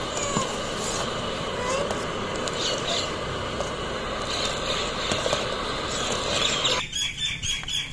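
Steady hiss of milk tea boiling hard in an aluminium pot on the flame, with a ladle scooping the tea up and pouring it back in to aerate it. The hiss cuts off abruptly near the end.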